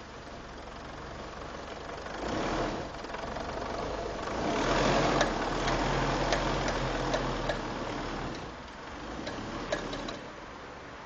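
Mitsubishi L200 pickup moving in reverse in four-wheel drive, its engine pulling harder and then easing off, with a run of sharp knocks from the drivetrain in the middle and a last knock near the end. This is the knocking that the owner is documenting, which appears only when reversing in 4WD.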